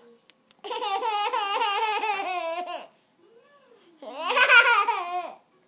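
Baby laughing in two long peals, each a quick run of high-pitched repeated 'ha' pulses. The second, about four seconds in, is louder.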